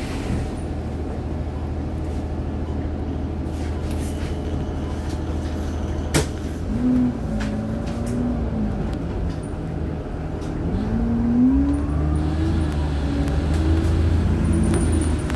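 Bus diesel engine idling while the bus waits at a junction, with one sharp click about six seconds in, then the engine note rising twice as the bus pulls away and turns.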